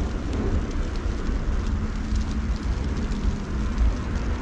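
Outdoor snowfall ambience: wind rumbling low and unevenly on the microphone over a steady hiss, with faint scattered ticks.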